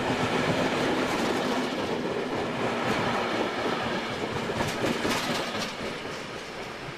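DB regional train's passenger coaches rolling past as the train pulls out of the station, with wheel clicks over rail joints. The noise fades as the last coach goes by near the end.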